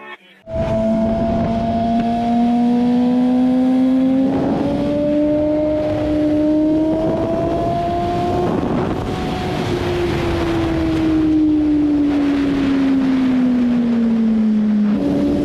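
BMW S1000RR's inline-four engine heard from the rider's seat at speed, with wind noise. The engine comes in about half a second in. Its note climbs slowly for about eight seconds, then falls slowly as the throttle eases, and jumps back up abruptly near the end.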